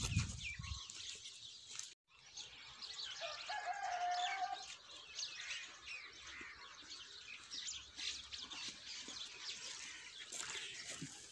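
Small birds chirping and twittering, with one longer held call about three seconds in and a brief low thump at the very start.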